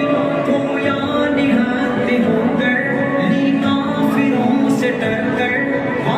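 A song playing: a voice singing over musical accompaniment at a steady level.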